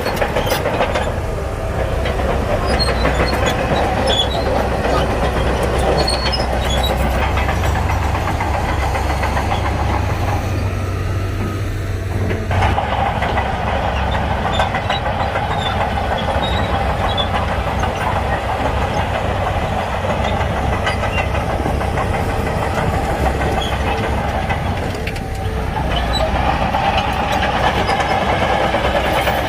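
Shantui crawler bulldozer's diesel engine running steadily under work, with a continuous metallic rattle; the engine note shifts a few times as it works.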